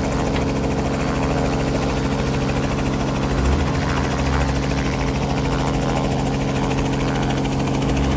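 Light helicopter's engine and rotor running steadily with an even, unchanging pitch, warmed up just before lift-off.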